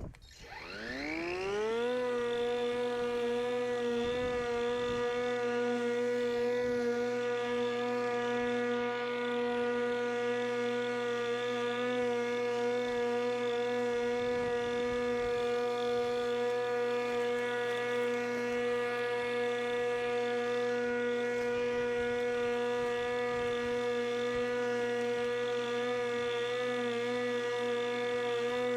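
Pellenc Rasion 2 Easy battery-electric lawnmower's motor and blade spinning up, rising in pitch over about two seconds, then running at a steady whine.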